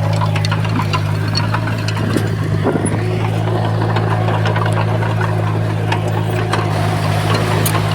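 Komatsu bulldozer's diesel engine running steadily, a low hum with scattered light clanks, wavering briefly about two to three seconds in.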